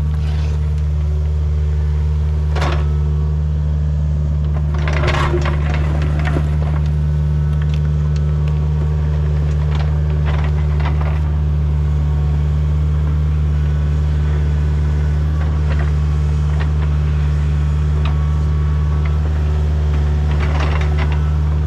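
A heavy machine's engine running steadily under load, with occasional cracking and snapping of wood breaking.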